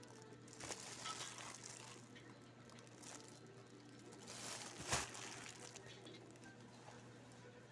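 Clear plastic shoe wrapping and a plastic courier bag crinkling in scattered rustles as they are handled, with a sharp tap about five seconds in. A low steady hum runs underneath.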